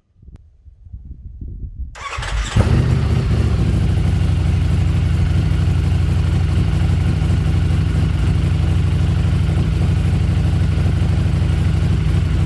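Ducati Streetfighter V4S's 1103 cc Desmosedici Stradale V4 with Arrow exhaust end cans starting up: it cranks briefly about two seconds in, catches, and then idles steadily and loudly.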